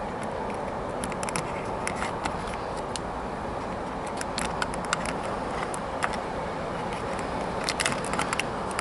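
Light clicks and scrapes of a wooden toothpick prying at the removable metal coal load in an OO-gauge model locomotive tender, coming in small clusters about a second in, around four to five seconds in and near the end, over a steady background hiss.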